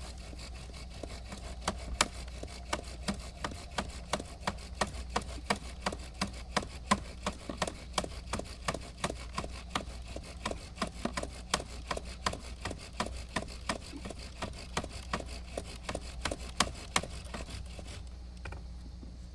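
Bow drill being worked fast: the wooden spindle driven back and forth in the fireboard by the bow, wood grinding with a sharp click at each stroke, about three a second, until it stops near the end. This is friction building a smouldering ember on a damp, cold fireboard.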